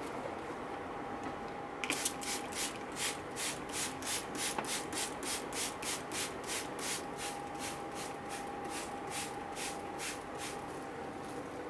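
Trigger spray bottle misting seedlings with water, squeezed in a quick, even run of short hissing squirts, about three a second. The squirts start about two seconds in and stop near the end.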